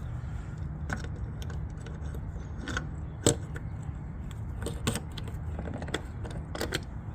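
Scattered metal clicks and clinks of nuts and tools as a corroded magnesium anode is unbolted from the boat, one sharper clink about three seconds in, over a steady low hum.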